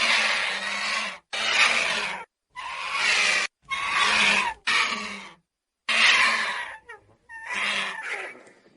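Vulture calling in a series of about seven harsh, hissing rasps, each about a second long, separated by sudden silent gaps.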